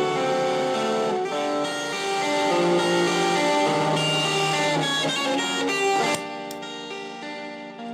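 Electric guitar played through a Ganesha distortion pedal: a run of distorted, sustained chords and notes. About six seconds in, the playing stops and the last chord rings on and fades.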